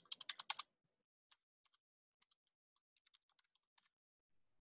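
Computer keyboard typing: a quick run of keystrokes in the first half-second, then a few scattered faint key clicks.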